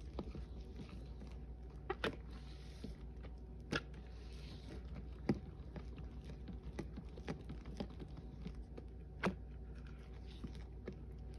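Gloved hand squeezing and kneading thick wet Lime Ajax cleanser paste in a stainless steel bowl: soft irregular squishing with a few sharper wet clicks, over a steady low hum.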